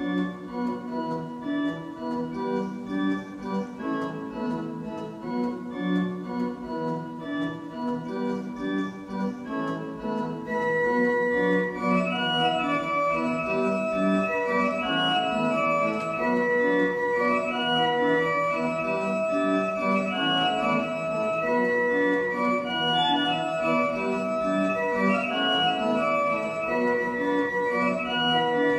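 Organ music: held chords and a slow melody, growing louder and fuller about ten seconds in.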